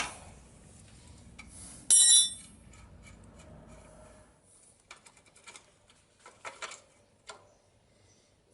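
Metal hand tools and parts clinking: one loud, ringing clink of metal on metal about two seconds in, then a scatter of light clicks and taps.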